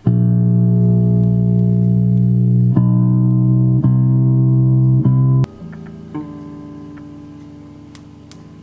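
Squier Stratocaster electric guitar played through a small amp while being tuned: open strings strummed loud and left ringing, struck again a few times, then damped suddenly about five seconds in, followed by quieter single notes plucked as a tuning peg is turned.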